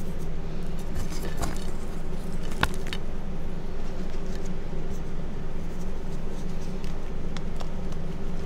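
Hands crushing and crumbling reformed gym chalk chunks and powder: scattered crackles and crunches, with a sharper crack a little under three seconds in, over a steady low hum.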